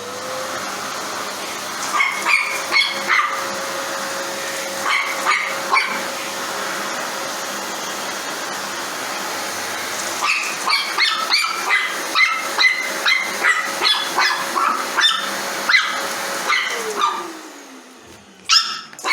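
A dog barking at a running vacuum cleaner: short barks in clusters, coming fast and often from about halfway through, over the vacuum's steady motor hum. Near the end the vacuum switches off and winds down, and one more bark follows.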